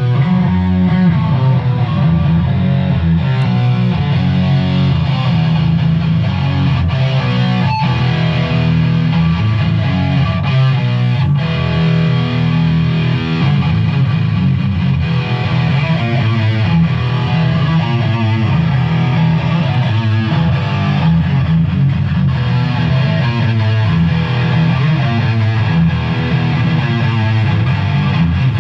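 Background music: rock with distorted electric guitar, playing steadily.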